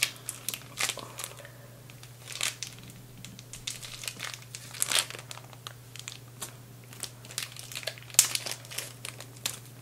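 Plastic sleeve crinkling and crackling in irregular bursts as a fountain pen is pried and peeled out of its tight packaging, with the sharpest crackle about eight seconds in.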